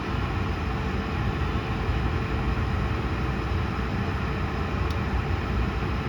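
Steady cabin noise inside an Airbus A220 airliner on the ground: an even low rumble with a faint steady hum running through it.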